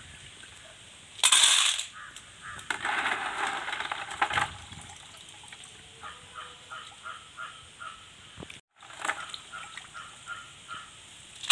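Water splashing and snail shells clattering as a strainer load of freshwater snails is lifted from a bucket of wash water and tipped into a steel bowl, in two loud bursts in the first half. After that, water drips back into the bucket while a bird calls about twice a second in the background.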